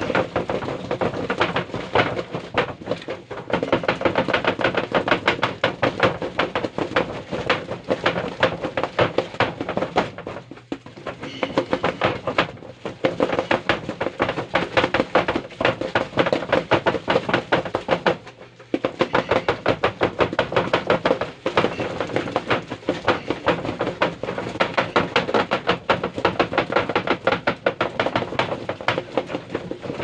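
Cardboard box on a plastic stand rattling and knocking rapidly against a tabletop as it is shaken by hand, many knocks a second, with short breaks about ten and eighteen seconds in.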